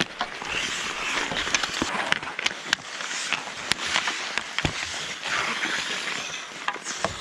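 Ice hockey play: skate blades scraping and hissing on the ice, with sharp clacks of sticks and puck striking several times.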